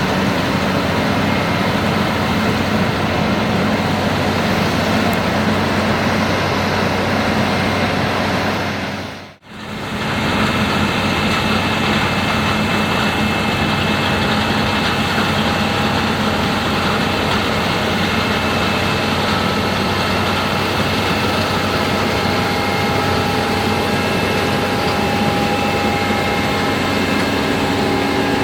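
Case IH Axial Flow AF10 combine harvester running steadily while harvesting wheat: a heavy engine with the steady whine and hum of the threshing machinery. About nine seconds in the sound drops out briefly, then resumes unchanged.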